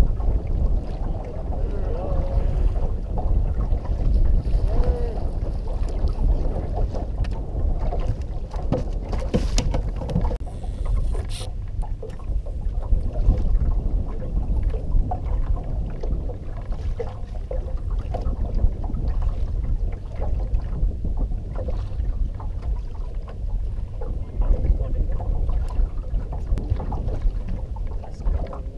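Steady low wind rumble on the microphone and water lapping against a small fishing boat's hull, with a few sharp knocks around ten seconds in.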